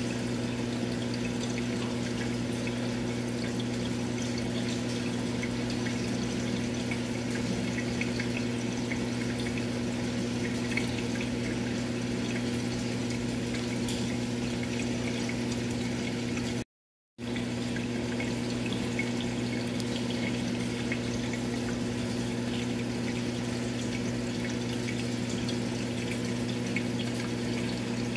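Steady electric hum of an aquarium pump over a hiss of moving, bubbling water. It cuts out for a split second a little past halfway.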